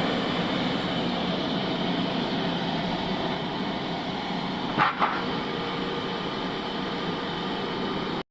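Old bandsaw sawmill running steadily, with a short knock about five seconds in.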